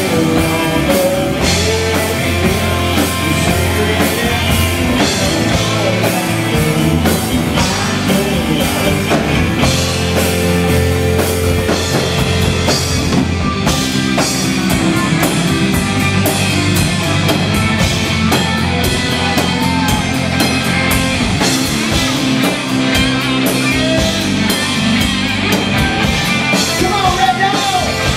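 Live country rock band playing loud, even music: electric guitars, bass and drum kit, with vocals.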